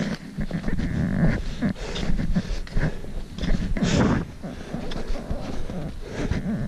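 A hiker's footsteps crunching on packed snow, with heavy breathing close to the microphone.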